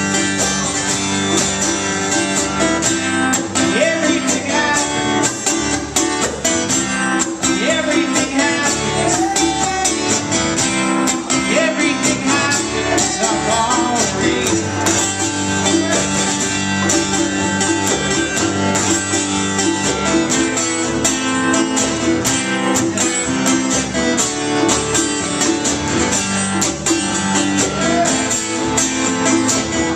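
Live band playing an instrumental passage: acoustic guitar strummed in a steady rhythm, over upright double bass and drums.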